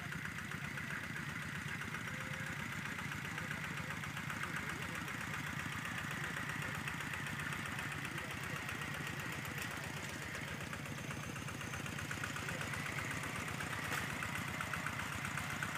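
Two-wheel walking tractor engine running steadily with an even, rapid chugging as it pulls a tillage implement, getting a little louder near the end as the tractor comes closer.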